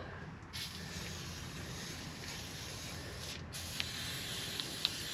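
Faint, steady hiss that starts about half a second in and cuts out briefly about three and a half seconds in.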